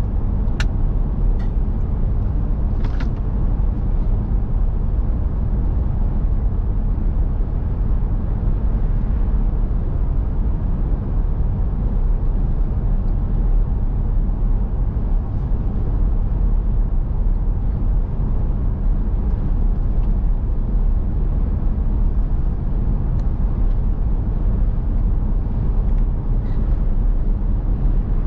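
Steady low rumble of a car driving along the road, engine and tyre noise heard from inside the cabin. A few faint clicks in the first few seconds.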